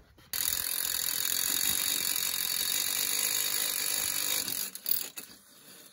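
Power drill boring a hole through a metal mounting plate with a twist bit, running steadily for about four seconds and then stopping, followed by a few short knocks.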